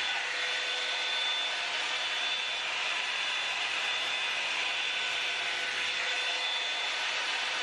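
Revlon hot-air dryer brush running steadily as it dries hair: an even fan rush with a constant high whine from its motor.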